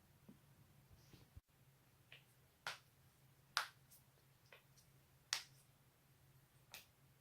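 Joints cracking: a string of about half a dozen sharp pops at irregular intervals starting about two seconds in, the two loudest in the middle.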